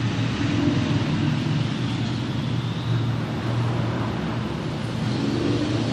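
Steady background rumble: a low hum under a continuous rushing hiss, with no pauses.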